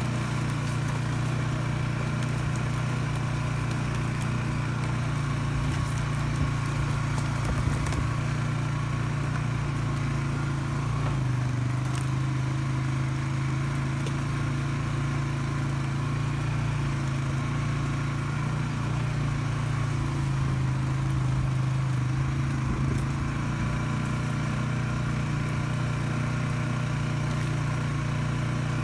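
Polaris Sportsman 570 ATV's single-cylinder engine running steadily at low trail speed, with a few light clicks from the ride over the trail.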